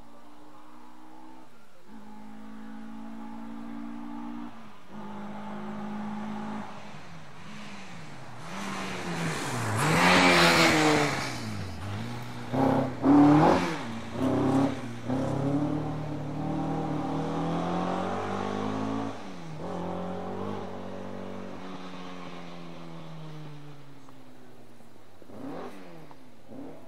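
Rally car engine approaching through gear changes, loudest as it passes about ten seconds in. It gives several short, sharp revs as it takes the chicane's double turn, then pulls away through upshifts and fades. Another engine rises faintly near the end.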